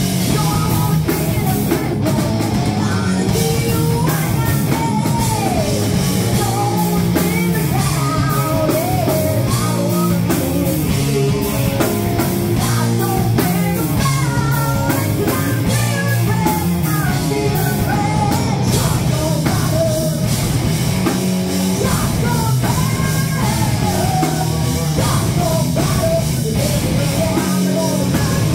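Live rock band playing: a woman singing lead over electric guitars and a drum kit, loud and steady.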